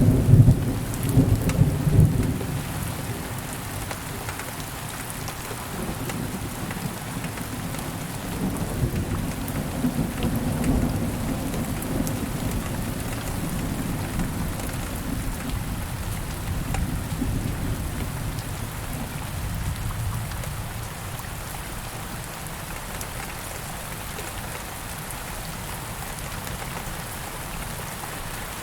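Thunderstorm: steady rain falling, with low rolling thunder loudest in the first couple of seconds and rumbling again about ten seconds in, then easing to even rain.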